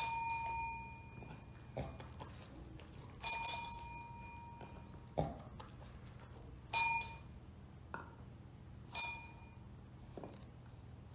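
A small metal bell rung four times, a few seconds apart, each ring fading out over about a second, with a few light taps in between.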